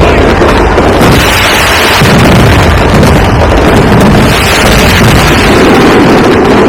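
Aerial fireworks barrage, shells bursting so densely that the bangs merge into one continuous, very loud rumble that nearly overloads the recording.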